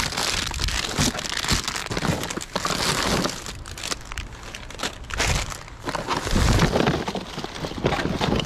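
Plastic bags crinkling and rustling as discarded produce is rummaged through and moved, with scattered knocks and a heavier thud about six and a half seconds in.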